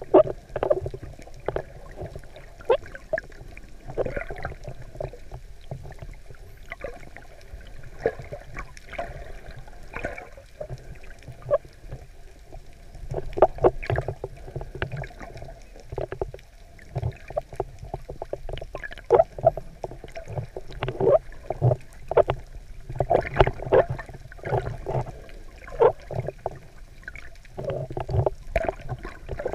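Underwater sound picked up through a GoPro housing just below the surface: irregular gurgling and sloshing of water, with bubbles, over a steady low rumble.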